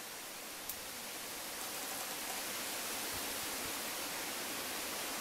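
Steady, even hiss with a single short click about a second in, growing slightly louder after a couple of seconds and cutting off abruptly at the end.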